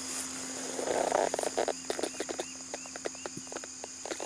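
Steady outdoor chorus of insects, with a brief rustle about a second in and then a run of light, irregular clicks and small repeated chirps.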